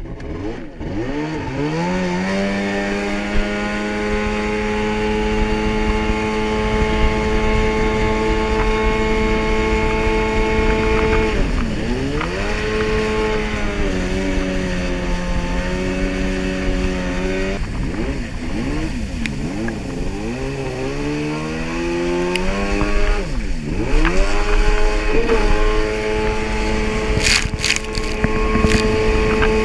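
Jet ski engine pulling away and running at speed, its pitch rising over the first couple of seconds and then holding steady. The throttle eases off and back on about twelve seconds in and again around seventeen seconds. Several quick dips and surges follow before it settles back to a steady high run near the end.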